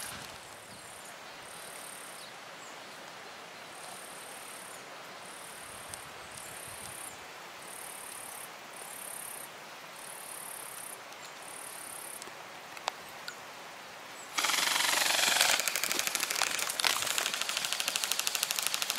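Quiet outdoor background with insects chirping high in a regular on-off pattern. About fourteen seconds in, a loud, rapid, even rattle of electric airsoft guns firing on full auto breaks in and keeps going.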